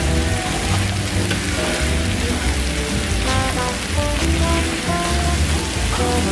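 Squid and pork belly stir-fry with bean sprouts sizzling steadily on a hot griddle as it is tossed with tongs. Background music with a bass line plays underneath.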